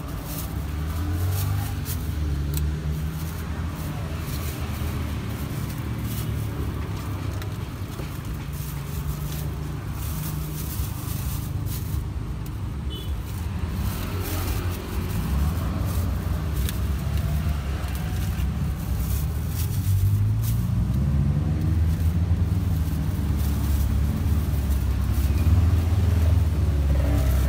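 Road traffic: motor vehicles running and passing close by, a low engine rumble that grows louder in the last few seconds. Scattered light clicks and crinkles come from plastic cup lids and bags being handled.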